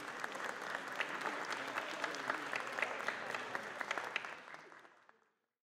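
Audience applauding, a dense patter of many hands clapping that fades out about four seconds in and stops just after five.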